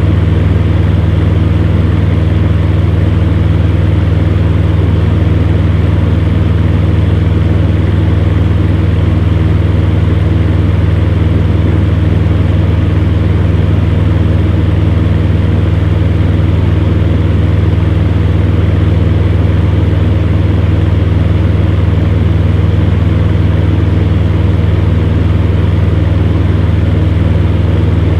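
Electric fan heater running steadily: a constant low hum under an even rush of blown air, with no change in speed or pitch.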